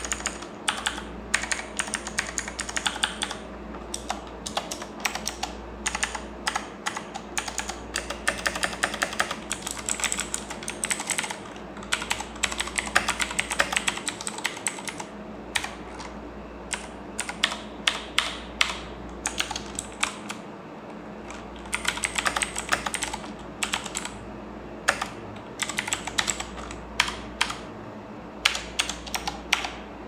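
Typing on a Redragon K586 Brahma mechanical keyboard with Outemu Blue clicky switches: rapid key clicks in runs, with a couple of brief pauses.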